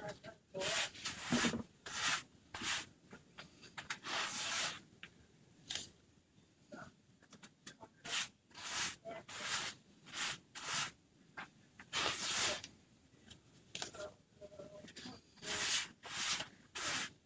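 A sticky adhesive stencil transfer being fuzzed on a cloth, pressed down and rubbed off again and again to take away some of its tack. It makes a series of short rasping rubs, roughly one a second, in uneven runs.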